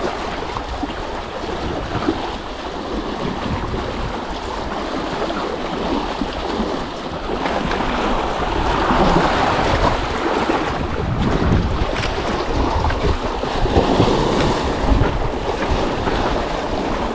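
Sea waves breaking and washing over shoreline rocks, with wind buffeting the microphone. The surf surges louder about halfway through and again near the end.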